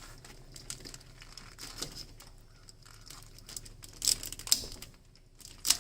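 Scattered small clicks and crinkling as a plastic zip tie on the battery cables is worked at and cut with a blade instead of snips, with a few sharper snaps about four and five and a half seconds in.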